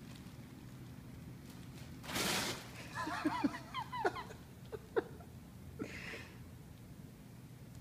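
A person giggling softly in a quick run of short laughs, just after a brief rustle, with a couple of light taps as the kittens play among nylon play tunnels.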